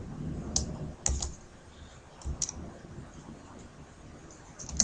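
Computer keyboard keystrokes: a handful of separate key taps, spaced irregularly, as code is typed.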